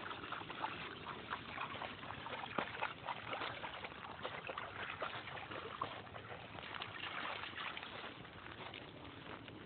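Shallow water lapping and sloshing at the edge of a shell-and-gravel beach, with a steady run of small crackles and clicks.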